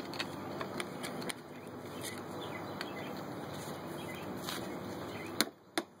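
Steady handling and rustling noise as the U-joint on a Jeep JK Dana 44 front axle shaft is turned and a screwdriver is set against its C-clip, with a few light clicks. Near the end come two sharp metal taps, the screwdriver being struck to knock the C-clip off.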